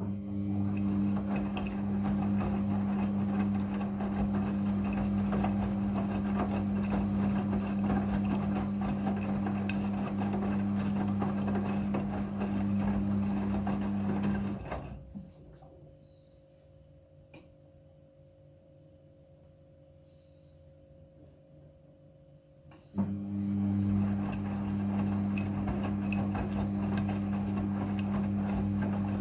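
Front-loading washing machine drum turning during a rinse: a steady motor hum over the noise of the tumbling load for about fourteen seconds, a pause of about eight seconds, then the drum starts up again abruptly.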